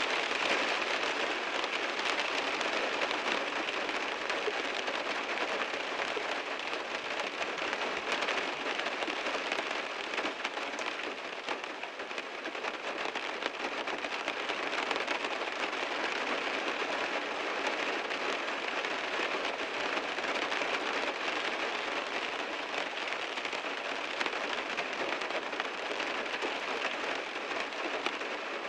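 Heavy rain drumming steadily on a car's body and roof, a dense pattering of countless drops.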